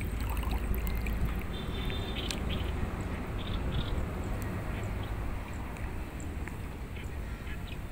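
Steady low wind rumble on the microphone, with a few short high chirps a couple of seconds in.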